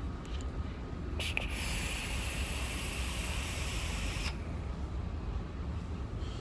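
A long drag on a copper tube vape mod: a steady hiss of the coil firing and air pulled through the atomizer. It starts suddenly about a second in and cuts off about three seconds later.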